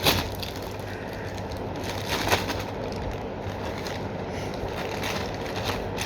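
Packaging crinkling and tearing as it is ripped open by hand, with a few sharper crackles.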